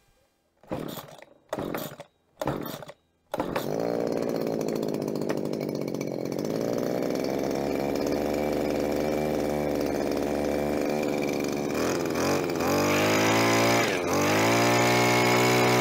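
The 22cc two-stroke engine of a Gardenline BG-35011 hedge trimmer is pull-started: three short tugs on the recoil starter, then it catches about three seconds in and idles steadily. It runs again now that the carburetor and fuel line have been replaced. Near the end the throttle is squeezed twice and the engine revs up, holding at high revs.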